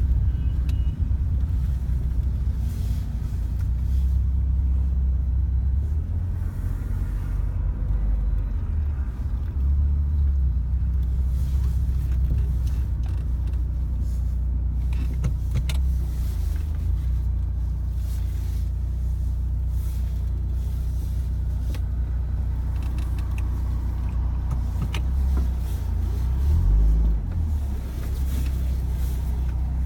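Car driving, heard from inside the cabin: a steady low road and engine rumble with a few short knocks from the suspension, which is fitted with Asomi and SS20 Gold parts.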